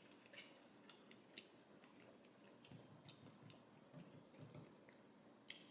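Very faint, scattered clicks of a metal fork against a plastic takeout container, with soft chewing.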